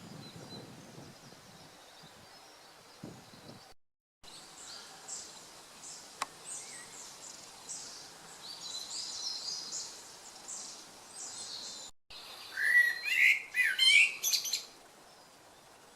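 Woodland birds singing: a run of repeated high chirping notes, then a louder, closer burst of song with quick rising and falling phrases near the end. The sound cuts out completely for a moment twice.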